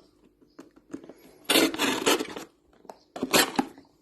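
A cardboard juice carton being cut open to make a feeding hole: two rasping, tearing cuts, a longer one about one and a half seconds in and a short one near the end.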